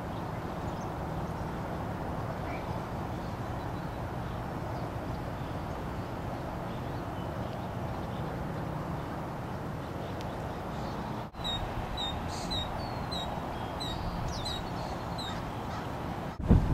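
Osprey calling: a run of short, high, downslurred whistled chirps, about two a second, for a few seconds from a little past the middle, over a steady background hiss.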